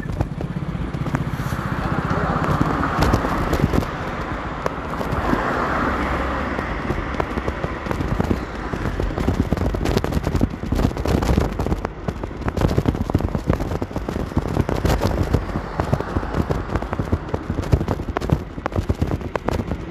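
Heavy rain, a dense crackle of drops striking close to the microphone, with road traffic swishing past twice in the first several seconds.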